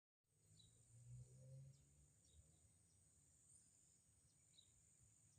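Near silence with a faint, steady high-pitched insect trill, broken by a few short, faint chirps.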